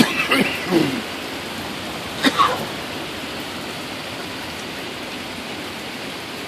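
Steady rain falling, an even hiss. Two short human vocal sounds come through it, one near the start and one about two seconds in.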